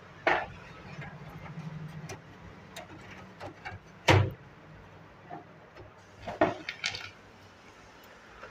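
A computer power supply unit being set down and seated in a steel desktop PC case: a few sharp knocks and light clatter of metal on metal, the loudest about four seconds in.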